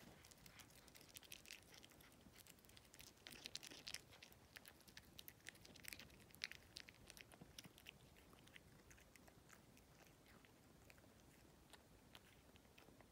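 A cat chewing a piece of banana: faint, quick clicks of its mouth. The clicks thin out after about eight seconds.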